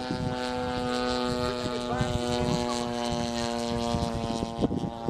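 Propeller aircraft engine running at a steady, unchanging pitch, fading out near the end, with irregular low thumps underneath.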